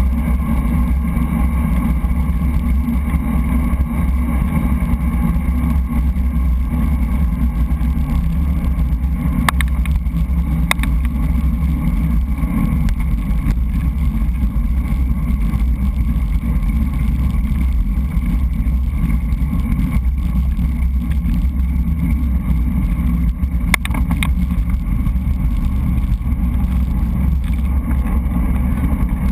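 Steady wind rumble on a GoPro's microphone while riding a road bike, with a few brief sharp clicks.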